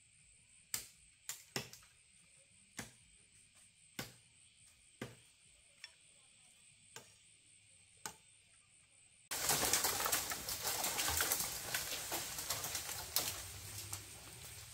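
A series of sharp knocks, about one a second. About nine seconds in, a sudden dense rush of crackling noise starts and slowly fades.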